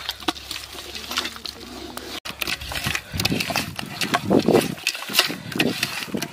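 A hand squishing and kneading thick, wet rice-flour and cornflour masala batter in an aluminium pot, with irregular wet squelches that grow louder about halfway through as the batter turns to a smooth paste.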